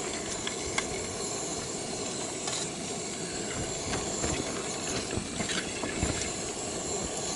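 Roasting tin of beef and part-boiled potatoes sizzling in hot fat as it sits at the open homemade camping oven, a steady hiss with a few light ticks and clinks.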